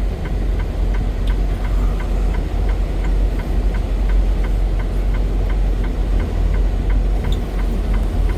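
Semi-truck's diesel engine running, heard inside the cab as a steady low rumble, with a light, even ticking about three times a second throughout.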